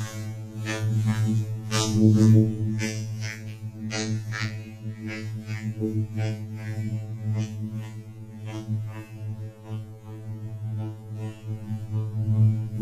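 A steady low hum holding one pitch with overtones, with irregular clicks and taps scattered over it.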